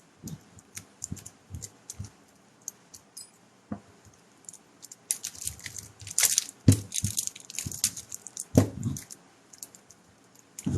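Metal clicking and rattling as lock picks and a tension wrench work a padlock. A denser stretch of jangling comes in the middle as the interlocked padlocks knock against each other.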